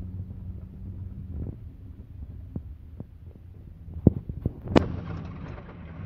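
Low steady rumble and hum of a Volkswagen Gol G4 driving, heard from inside the cabin. A few sharp knocks stand out about four and almost five seconds in, after which a hiss of road and wind noise grows louder.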